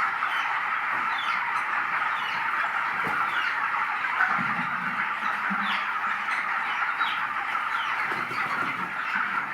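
A large flock of 25-day-old broiler chickens cheeping together in a dense, steady chatter, with many short falling peeps standing out from it.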